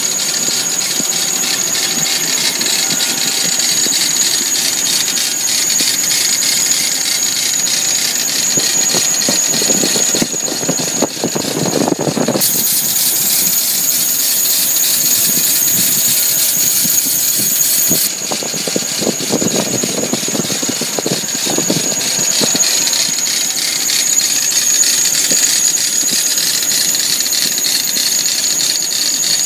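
2002 Toyota Sequoia's 4.7-litre V8 running, with a steady high-pitched whine from the accessory belt drive over the engine noise. The owner rules out the belt and takes the noise for a failing pulley (idler, tensioner or accessory pulley bearing).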